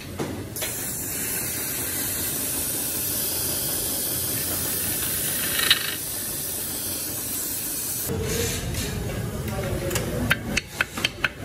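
Steady hissing factory machine noise, then a quick run of about five sharp hammer taps on a ceiling fan motor's metal housing near the end.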